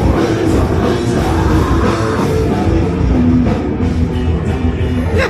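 Loud rock music with a heavy, distorted sound, pounding low end and drums.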